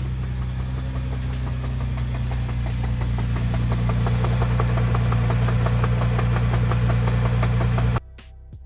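Nissan GT-R idling with a fast, even rattling knock over the engine drone, a noise the owner asks may come from a bad transmission or flywheel. It cuts off abruptly near the end.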